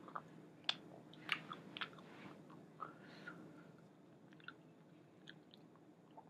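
A person chewing a mouthful of hot chicken wing: faint, irregular wet mouth clicks and smacks.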